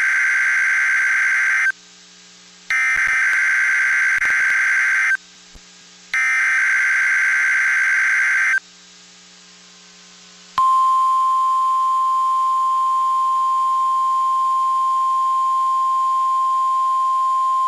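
NOAA Weather Radio alert signals for a weekly test. Three identical bursts of SAME header data screech about a second apart. After a short pause, about ten seconds in, the steady 1050 Hz warning alarm tone starts and holds.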